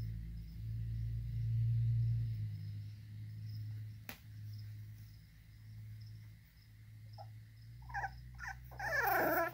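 Young American Bully puppies whimpering and yipping: a few short high cries near the end, the last the loudest. Under them, the steady chirping of feeder crickets and a low drone.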